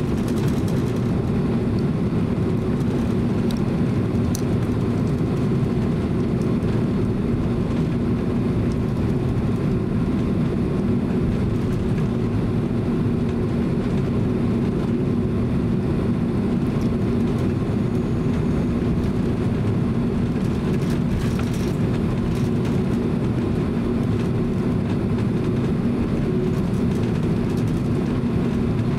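Cabin noise inside a Boeing 767-300 taxiing on the ground: a steady engine drone with a low, even hum under it.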